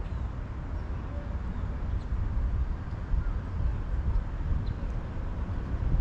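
Outdoor ambience: a continuous low rumble with a few faint, scattered bird chirps.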